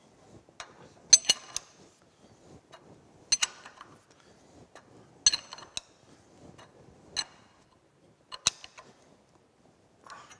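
Metal wrench clinking against bolt heads as the bolts holding the boring mill table's end cover are tightened: a sharp, ringing metallic clink every second or two, with quiet handling noise between.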